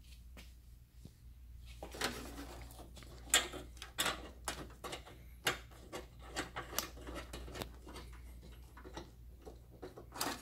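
Hands fitting an aftermarket headlight into a car's front end: irregular plastic and metal knocks, clicks and rubbing, starting about two seconds in, as the housing is pushed and worked into place against its bracket.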